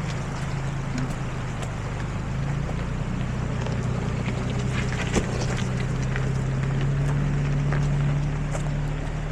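4x4 truck's engine running at low speed on a rough trail, its hum rising slowly and then dropping back about eight seconds in, with scattered small knocks and rattles.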